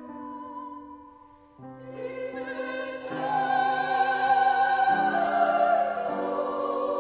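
Classical singers with vibrato, accompanied by piano, performing a slow sacred Requiem passage. A held chord fades away about a second and a half in. Then the voices enter and swell, loudest in the second half, with sustained notes that change chord every second or so.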